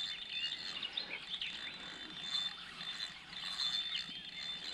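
Birds chirping in short calls, over a thin, high steady whine that breaks off and comes back a few times.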